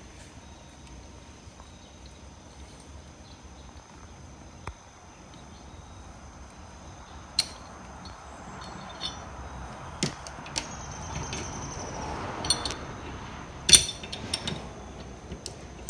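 Scattered clinks and knocks of metal parts and hardware being handled, the loudest near the end.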